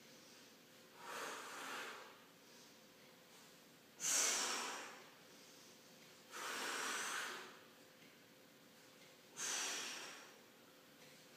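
A man's breaths during dumbbell curls: four noisy breaths, one about every two and a half seconds, the loudest about four seconds in.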